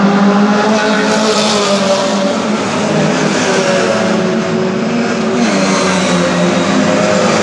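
Several classic Mini racing cars with four-cylinder engines coming up the street together, engines revving hard, their pitch rising and falling.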